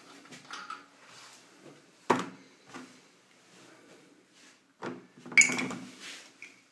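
Handling noises close by: a sharp knock about two seconds in and another just before five seconds, then a brief crinkling rustle of plastic packaging being handled near the end.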